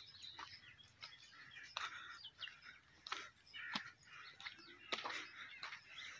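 Faint birds chirping, broken by a few sharp clicks or crunches.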